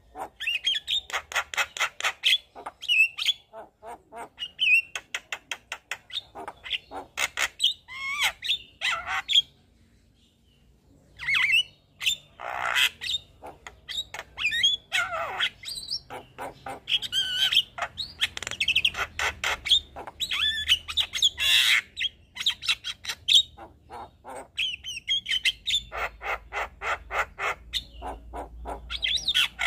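Javan myna singing a long, varied song: fast rattling runs of harsh clicks mixed with squawks and short whistled phrases, with a brief pause about ten seconds in.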